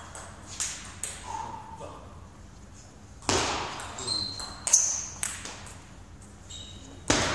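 Table tennis rally: the ball clicking off the bats and the table, with shoes squeaking on the hall floor. A louder, sharper hit comes a little before the middle, and there are broader bursts of noise about three seconds in and near the end.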